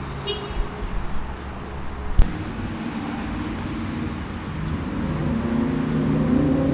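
Motorcycle engine running low and steady, then rising in pitch from about five seconds in as it accelerates. A single sharp knock comes about two seconds in.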